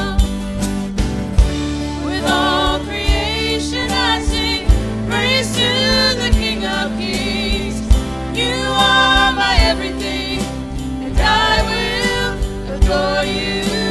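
Contemporary worship music from a praise band: a singer holding long notes with vibrato over bass and drums.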